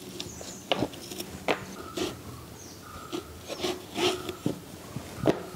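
A curved knife scraping the seeds and soft core out of ash gourd slices over a dried palm-leaf plate: a string of short scrapes and clicks at irregular intervals.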